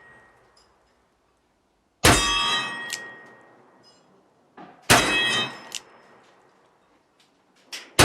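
Smith & Wesson Model 29 .44 Magnum revolver firing at steel targets: two shots about three seconds apart, each answered by the steel plate ringing and fading over about a second. A third shot and ring come at the very end.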